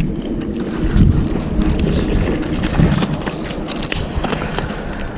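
Steady low rumble of wind buffeting the microphone, with scattered small clicks and knocks over it.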